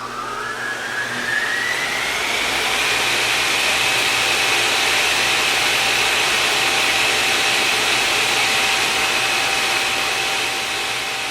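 A high-speed electric motor winding up to speed, its whine rising over the first two seconds or so and then holding steady as a loud high whine over a rush of air.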